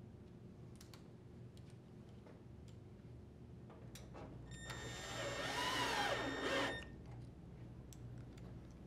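Cordless drill driver running for about two seconds about halfway through, driving a screw home to secure the dryer panel's support, its motor whine rising and then falling in pitch. A few light handling clicks come before it.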